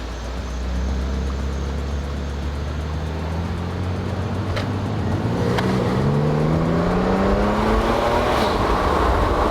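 2012 Audi S5's engine under way, running steadily and then accelerating from about halfway in, its pitch climbing and getting louder toward the end. Two short clicks come just before the climb.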